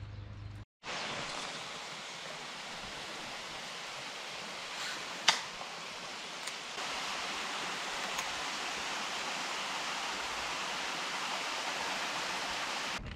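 A steady rushing hiss, with one sharp click about five seconds in.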